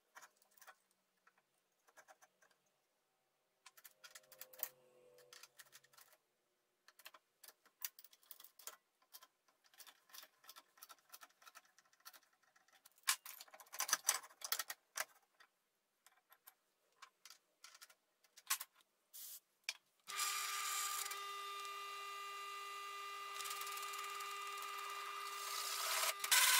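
Scattered light clicks and scrapes of metal parts being handled and fitted into a plastic jig. About 20 s in a drill press starts and runs with a steady pitched hum, getting louder near the end as its hole saw bites into the steel plate.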